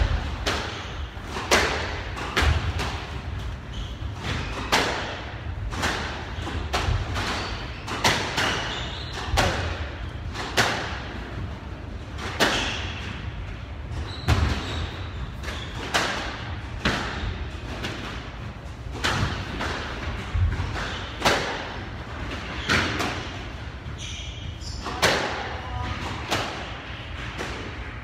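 A squash ball being hit back and forth: sharp racket smacks and ball impacts on the court walls, roughly once every second or so, each with a short echo in the court.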